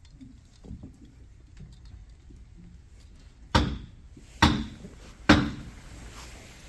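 Three sharp raps of a wooden gavel, evenly spaced a little under a second apart: the presiding officer's signal calling the assembly to order before the prayer.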